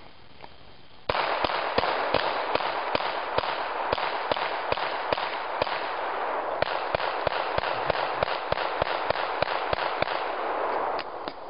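Rapid pistol gunfire from several shooters at once, among them a 9x18mm Makarov pistol: sharp shots about three a second over a steady hiss, starting about a second in and stopping abruptly near the end.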